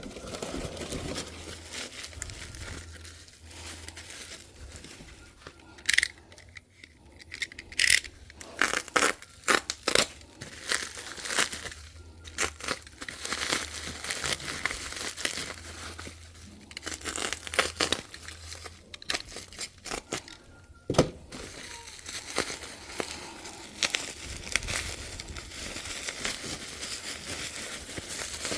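Packaging being torn open and crumpled by hand, with irregular crinkling and rustling and some sharp crackles.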